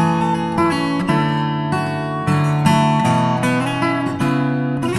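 Background music: an acoustic guitar playing a steady sequence of picked notes and chords.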